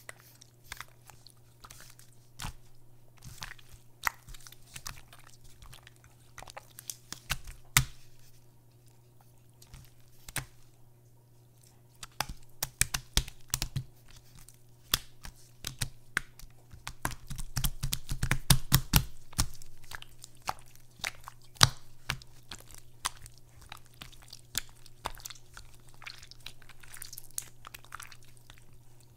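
Glossy translucent slime squeezed and folded by hand, giving wet crackling clicks and squelches. The clicks come thickest and loudest about two-thirds of the way through, over a faint steady low hum.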